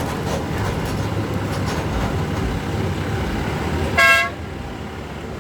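A vehicle horn gives one short toot about four seconds in, the loudest sound here, over a steady rumble of vehicle and road noise.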